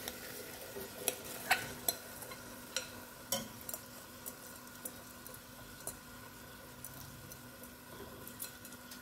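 Onions, garlic and herbs sizzling faintly in butter in a pot while washed rice is tipped and scraped in from a glass bowl, with scattered light clicks and taps.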